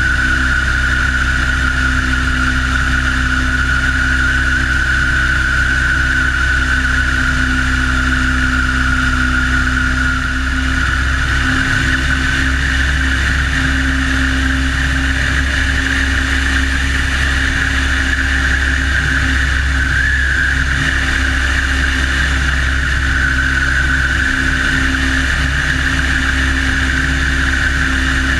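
De Havilland Tiger Moth's inverted four-cylinder engine and propeller running steadily in cruising flight, with wind rushing over the wing-mounted microphone.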